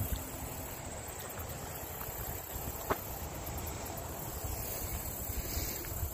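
Insects trilling steadily in a high, thin band over a low, uneven rumble, with one sharp click about three seconds in.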